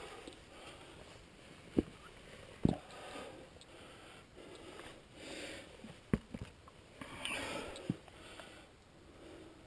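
A climber breathing hard in soft, regular swells while moving up a rock chimney, with a handful of sharp knocks of body and gear against the rock, two close together about six seconds in.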